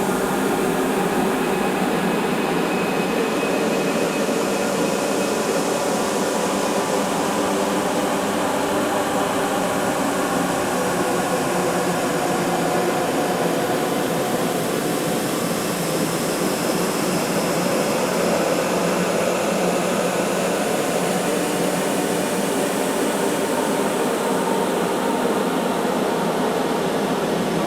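Crowd chatter sound effect time-stretched with Paulstretch into a steady, smeared drone of blended voices, with many faint held pitches and no words to be made out.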